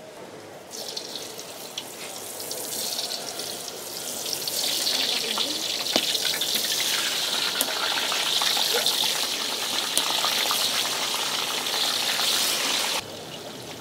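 Marinated tofu sizzling in hot oil in a wok as pieces are dropped in. The sizzle builds louder as more go in, with scattered small ticks, and cuts off abruptly near the end.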